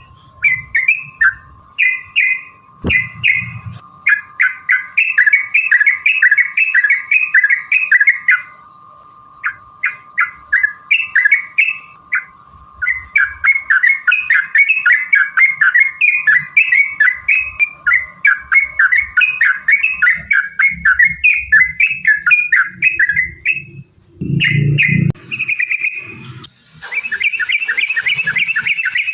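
Yellow-vented bulbul (trucukan) song in long, fast rolls of repeated chattering notes, broken by a few short pauses. A faint steady tone sits under the first two-thirds.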